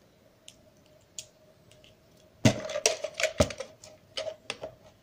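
Plastic snap-fit clips of a gamepad's shell clicking and cracking as the halves are pried apart with a flat screwdriver. The sharp snaps and knocks come in a quick run starting about halfway through.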